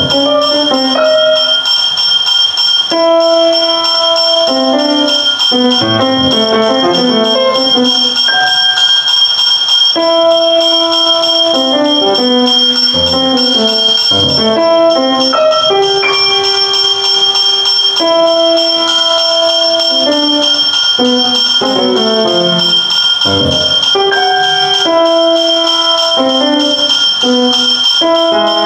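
Experimental electronic music played from a laptop: layers of bell-like pitched notes in a looping figure that comes round every several seconds, over two held high tones, with a few low thuds.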